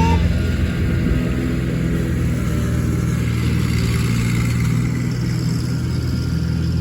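An engine idling steadily, a low, even hum that holds the same pitch.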